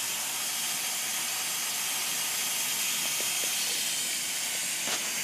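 Steady hiss at a leaking GE hybrid water heater, with a few faint ticks about three seconds in.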